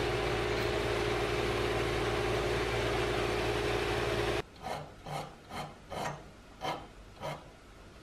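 Lathe running with a 6 mm end mill in the spindle, milling a slot into a steel part, as a steady machine noise with a held whine. It cuts off suddenly about four seconds in, followed by about six rasping strokes of a small hand file on the metal part, roughly two a second.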